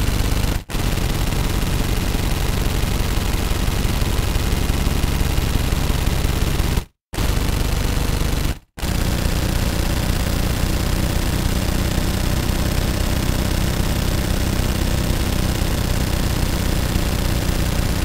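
Automatic gunfire in long sustained bursts of rapid shots, broken by short pauses about a second in, about seven seconds in and just before nine seconds in.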